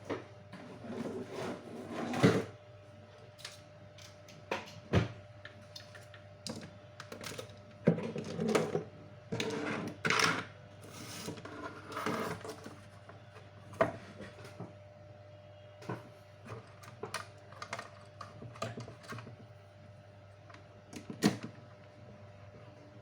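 Irregular clicks, knocks and clatter of small objects being handled at close range, in scattered clusters with a few sharper knocks, over a faint steady tone.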